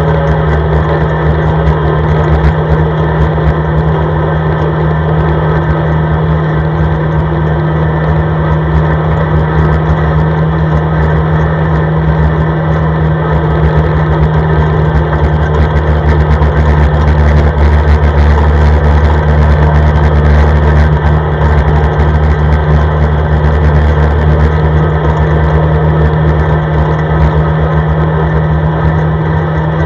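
ATV engine running steadily while the quad drives along, a low drone that grows a little louder for several seconds past the middle and then eases back.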